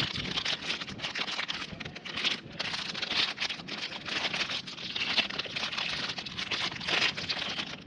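Packaging being opened and handled: a continuous dense rustling and crinkling full of small clicks as a new set of brake pads is unwrapped.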